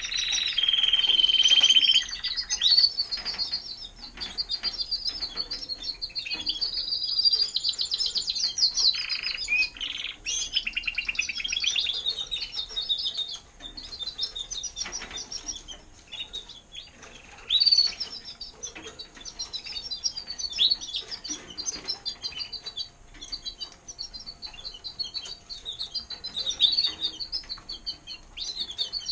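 Timbrado español canaries singing in rapid trills and chirps. One trill is held at a steady pitch for the first two seconds, followed by changing, rolling phrases.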